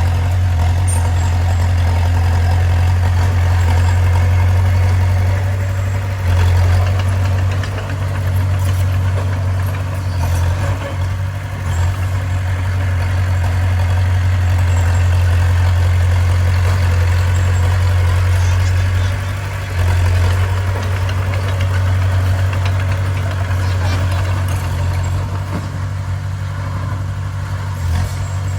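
Bulldozer's diesel engine running steadily with a deep drone that dips briefly a few times.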